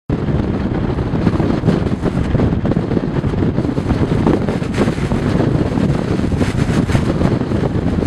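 Strong blizzard wind, gusting up to about 90 km/h, buffeting the microphone with a loud, continuous low rumble that rises and falls with the gusts.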